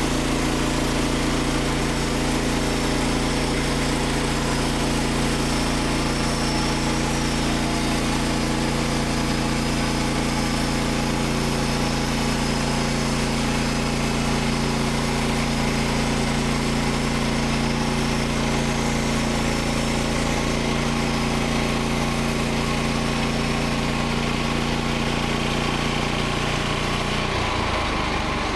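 Petrol engine of a Frontier OS27 bandsaw mill running steadily at speed, with the blade sawing through an ash log. The engine note changes shortly before the end.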